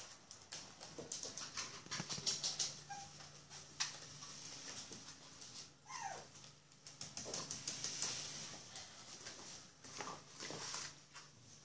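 Bichon Frise puppies about five weeks old, moving about: quick soft clicks and rustles in clusters, with one short falling whimper about six seconds in.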